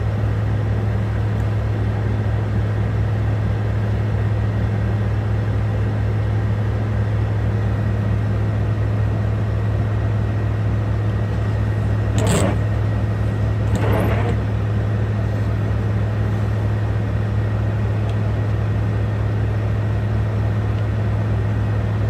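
Truck's diesel engine idling inside the cab, a steady low hum with a fine even pulsing. Two brief rustles a little past halfway, about two seconds apart.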